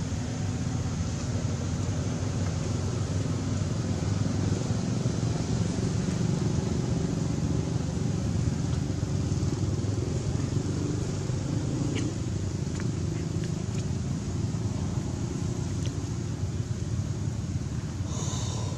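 Steady low rumble of an engine running, like a motor vehicle idling nearby.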